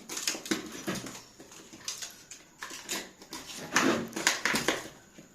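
Irregular knocks and scrapes of a hammer and chisel breaking into a plastered masonry wall to cut a recess for an electrical outlet box.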